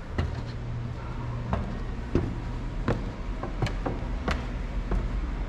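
Footsteps on wooden steps and a tiled floor, a knock roughly every two-thirds of a second, over a low steady hum.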